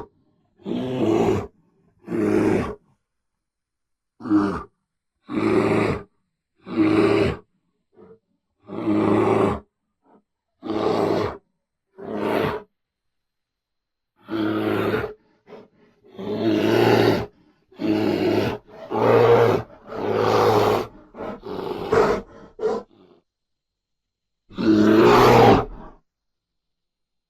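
Bear roaring and growling in a string of about fifteen separate calls, each roughly a second long with short silences between, the longest one near the end.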